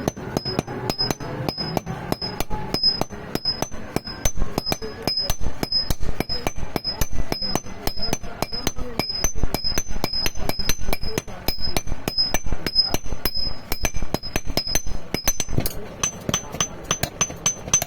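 Hand hammers striking hot iron on an anvil in a fast steady rhythm, about five blows a second, each with a high metallic ring, as iron nails are forged by hand. The ring turns slightly higher near the end.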